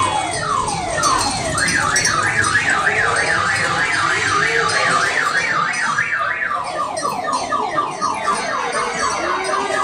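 Electronic siren sound effects from amusement rides: a run of quick falling sweeps, then a fast up-and-down warble of about three or four cycles a second, then falling sweeps again.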